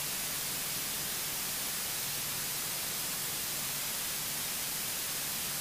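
Steady electronic hiss of a light aircraft's cockpit intercom audio feed, with a faint low hum under it.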